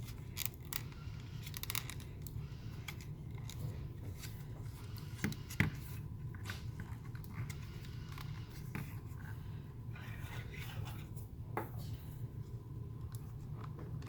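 Small clicks, scrapes and rustles of hands working the plastic housing and wiring harness of a car A/C control unit, with a sharper click about five and a half seconds in, over a steady low hum.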